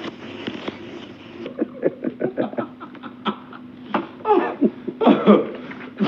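A man laughing: a run of short, quick bursts, then louder, longer laughs near the end.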